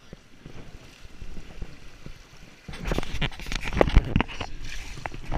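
Flowing river water, then about three seconds in loud close splashing with sharp knocks and rubbing bumps on the microphone as a fish is handled in a landing net in the water.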